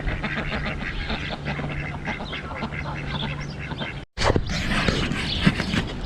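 A flock of farm fowl calling, a dense chatter of many short calls, with a brief break about four seconds in.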